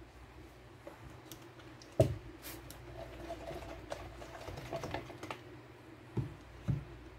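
A sharp knock about two seconds in, then light clicking and tapping of a thin stir stick against the sides of a plastic measuring cup as melted soap is stirred, and two dull thumps near the end.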